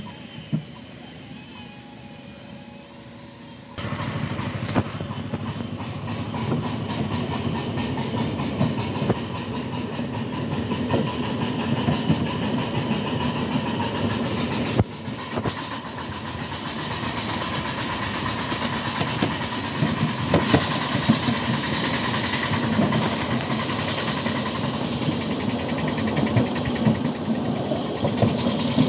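Ridable live-steam miniature train running, heard from its riding cars: wheels rumbling and clicking along the small-gauge track. The sound grows suddenly louder about four seconds in, and there is a short spell of hiss past the middle.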